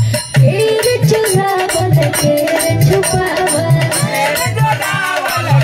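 A woman sings a rustic Bhojpuri wedding folk song (vivah geet) in long, wavering held notes. A steady beat of hand drum and clapping runs under her voice.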